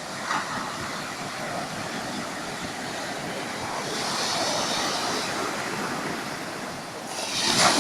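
Sea waves washing onto a beach: a steady rush of surf, with one wave hissing in about four seconds in and a louder wave breaking near the end.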